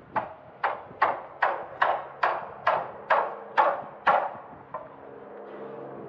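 Hammer blows on a timber building frame, about ten strikes at a steady two or so a second, each with a short ringing tail. A steady low hum comes in after the hammering stops.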